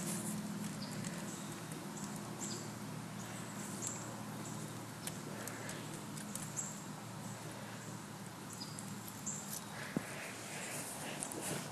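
Raccoons' paws and claws pattering and scuffing on a tile floor, with light knocks as they handle a small pumpkin. A low hum underneath fades out about two-thirds of the way through.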